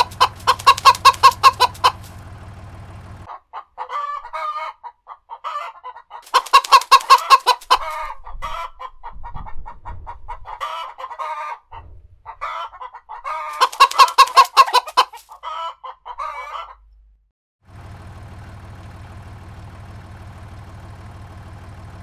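Domestic hens clucking. Three loud runs of rapid clucks come at the start, about 7 seconds in and about 14 seconds in, with quieter scattered clucks between them.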